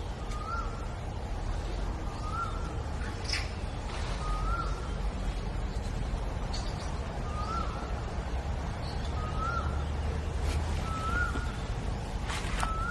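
A bird calling in the background: a short note that slides up and levels off, repeated evenly about every two seconds, over a steady low rumble of wind, with a few sharp clicks in between.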